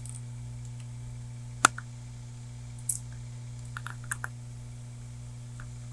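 A few scattered computer keyboard keystrokes: a single sharp keypress about a second and a half in, another near three seconds, a quick cluster around four seconds and one more near the end, over a steady low electrical hum.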